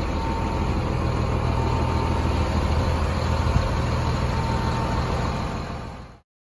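Caterpillar D6T LGP crawler dozer's diesel engine idling steadily, then fading out near the end.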